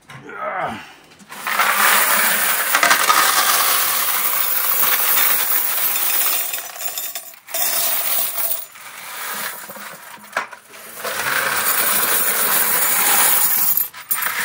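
A bucket of quarters and brass car-wash tokens being poured into a coin counter's hopper tray: a dense rush of clinking coins, in three pours with short breaks between, the first and longest lasting about six seconds.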